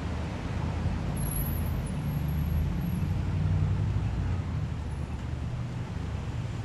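Street traffic at an intersection: a steady low rumble of car engines and tyres, with a brief thin high whine about a second in.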